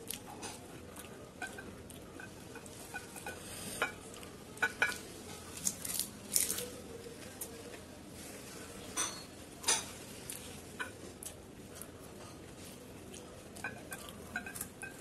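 Crisp fuchka (panipuri) shells cracking and crunching as they are broken open with the fingers and eaten, with light clinks and wet dabbling from fingers in a small glass bowl of pani. The crackles come scattered and irregular, with the loudest few in the middle.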